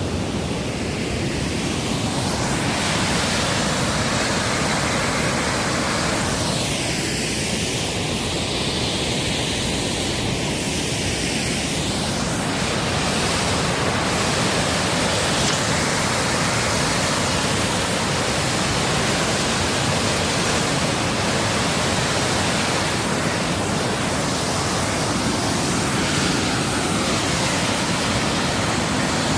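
Waterfall rushing, a loud, steady wash of falling water.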